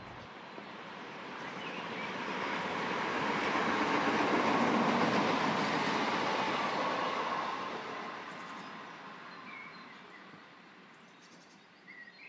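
A vehicle passing by: a rushing noise that swells for about four seconds and fades away over the next five.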